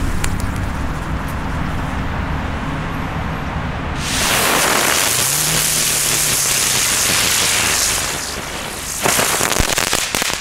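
Explode Storm ground spinner firework hissing loudly for about four seconds as it sprays sparks, starting about four seconds in, followed by a few sharp pops near the end.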